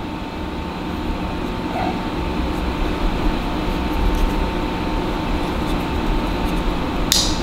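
Steady background hum and hiss with a faint constant tone, like a room's air conditioning or ventilation running.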